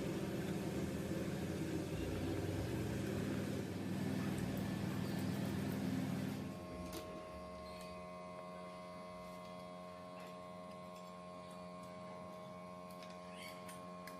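A small electric motor runs with a steady hum, then cuts off about six and a half seconds in, leaving a quieter, steady set of tones.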